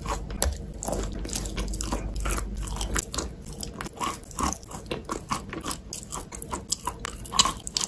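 Close-up chewing of wet Lerkin chalk coated in clay paste: a run of irregular wet crunches, a few a second, with one louder crunch near the end.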